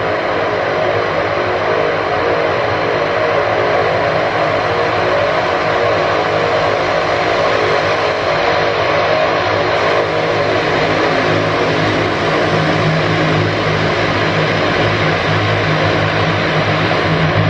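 Propeller aircraft engines running loud and steady. A lower drone grows stronger about two-thirds of the way through.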